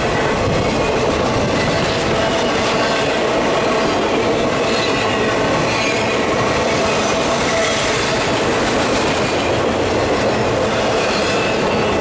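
Empty intermodal well cars of a freight train rolling past close by: steel wheels rumbling and clattering steadily on the rails, with a thin steady wheel squeal over the top.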